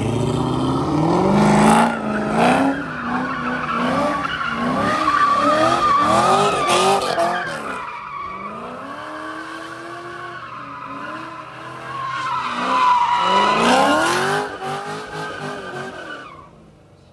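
C5 Corvette Z06's V8 revving up and down while doing donuts, the rear tyres squealing as they spin and slide. The sound dips about halfway through, swells again and fades near the end.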